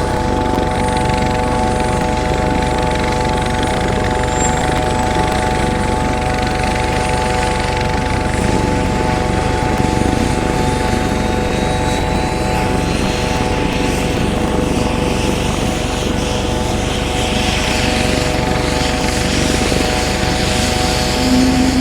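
Helicopter running steadily: a constant whine of several steady tones over a dense, even rumble of engine and rotors.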